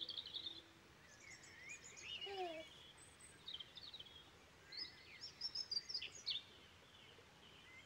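Wild birds chirping and singing in scattered quick calls and trills, the densest run near the end, with one lower gliding call about two seconds in, over faint outdoor background hiss.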